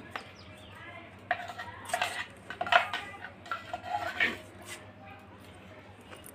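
A wire whisk scraping and clinking against a stainless steel bowl in irregular strokes, mixing thick, coarsely ground urad dal batter.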